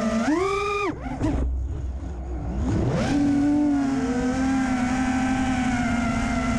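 Brushless motors of a 5-inch FPV quadcopter (HGLRC Aeolus 2207.5, 1900KV) whining at a steady pitch, then rising sharply as the throttle is punched. The whine cuts out just under a second in, leaving a low rumble, and winds back up in a rising glide around three seconds in before holding steady again.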